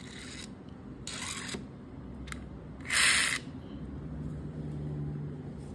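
Handling noise as a die-cast toy police car is pushed by hand across a marble floor: two short hissing swishes about a second and three seconds in, a single click between them, and a faint steady hum near the end.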